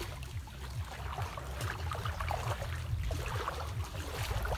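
Shallow water splashing and lapping in small irregular bits, over a low uneven rumble of wind on the microphone.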